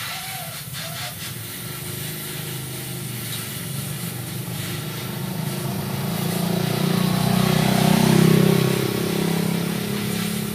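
A motor vehicle's engine, a steady hum that swells to its loudest about eight seconds in and then eases off.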